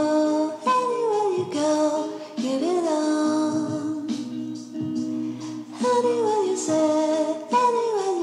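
Background music: a song with singing, its melody gliding between notes in short phrases.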